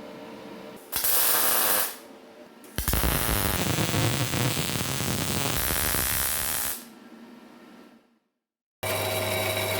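Welding arc crackling on thin steel in two runs: a short tack of about a second, then a longer bead of about four seconds.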